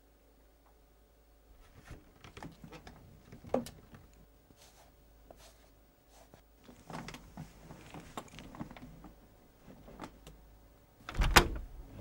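Double casement window being worked open: scattered soft clicks and creaks, then a louder knock and rattle near the end as its two sides come open.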